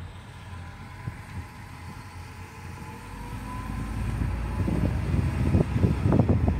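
Low rumble of a car driving slowly, heard from the cabin with the window open. From about four seconds in, wind buffets the microphone, growing louder.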